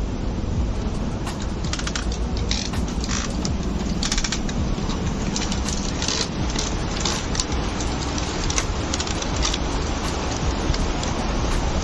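Waterfall rushing steadily, with irregular sharp clicks over it.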